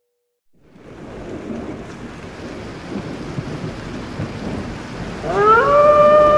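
Spooky end-card sound effect: a rumbling, rain-like thunderstorm noise fades in and builds. About five seconds in, a long wailing tone glides upward and then holds steady.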